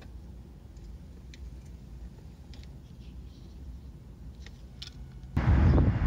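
Faint low outdoor rumble with a few light clicks, then about five seconds in a sudden loud rush of wind buffeting the microphone.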